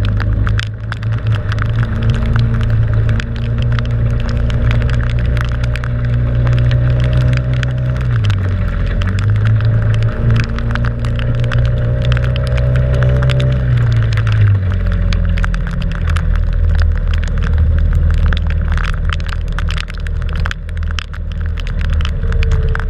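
Motorboat engine running steadily, its note dipping briefly and then settling lower partway through, with rain crackling and pattering on the camera.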